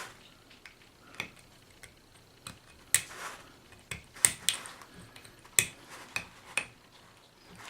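X-Acto knife scoring and scraping the inside of an RC wheel's stripped hub cavity, a string of short, irregular clicks and scrapes, roughing up the surface so the epoxy can bond.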